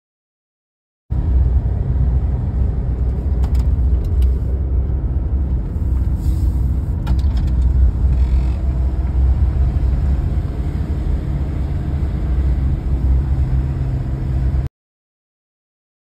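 Steady low rumble of a car driving on a dirt road, heard from inside the cabin, with a few faint clicks. It starts abruptly about a second in and cuts off abruptly near the end.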